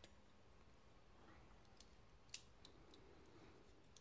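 Near silence broken by a few small, sharp clicks, the loudest about two and a half seconds in: a small metal pocket knife being handled.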